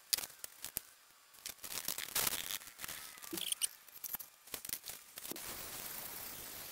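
USC All-Metal body filler being mixed on cardboard and spread with a plastic spreader: soft, uneven scraping and smearing with light taps. A faint steady hiss from about five seconds in.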